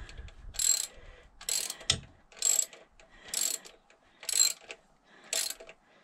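Hand socket ratchet clicking in six short runs about a second apart as the handle is swung back between strokes, tightening the hold-down bolt of an ignition coil.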